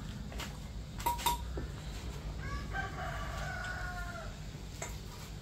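A rooster crows once, a single pitched call of a little under two seconds starting about halfway through. A couple of sharp knocks come about a second in, over a steady low hum.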